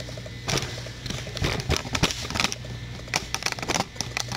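Irregular clicks and knocks, bunched in places, over a steady low hum.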